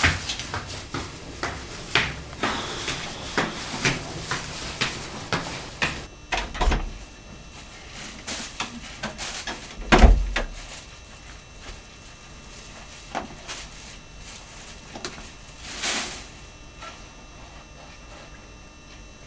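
Footsteps climbing stairs, about two a second, then an apartment door opened and shut with a heavy thump about ten seconds in, followed by a few quieter knocks and rustles.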